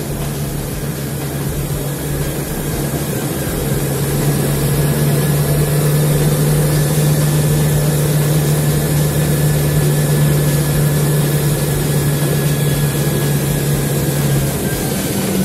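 A motor vehicle's engine running steadily under load as it drives fast across sea ice. The drone grows louder a few seconds in, and its pitch steps up near the end.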